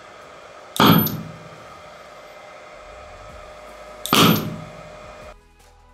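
Two loud, sharp bangs about three seconds apart, each trailing off in a short rush: HHO gas from a water-electrolysis cell igniting in a small homemade rocket engine. A low steady hum lies underneath.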